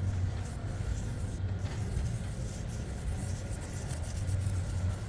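A machine running with a steady low rumble.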